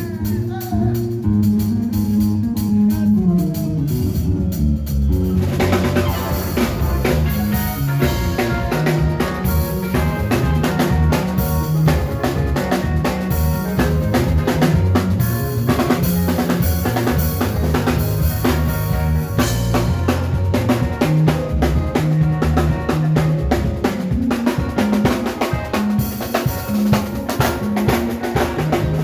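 Band playing a makossa groove with a drum kit prominent. The first few seconds are sparse, mostly drums and low notes, and about five seconds in the rest of the band comes in and the sound fills out.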